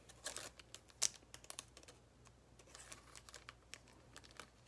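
Faint, irregular light clicks and taps of trading cards being handled and shuffled, with one sharper click about a second in.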